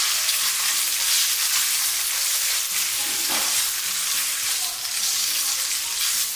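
Shredded pork sizzling steadily in hot oil in a wok as a spatula stirs and separates the strips.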